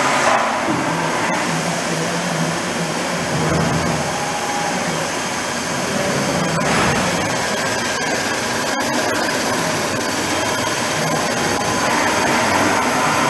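Steady, loud rushing machine noise with a faint low hum, unbroken throughout.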